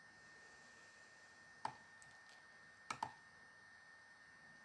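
Computer mouse clicking over near-silent room tone: a single click about a second and a half in, then two clicks in quick succession about three seconds in.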